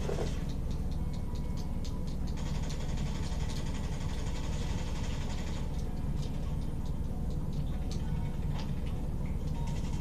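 Steady low background hum with a few faint ticks, and a soft hiss from about two to six seconds in.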